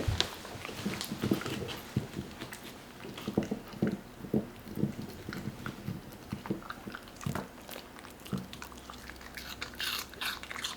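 Eating sounds: irregular chewing and biting, with crisper crunches near the end.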